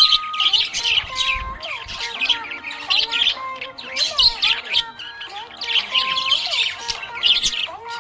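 Budgerigars chirping and squawking in quick, frequent bursts, over background music.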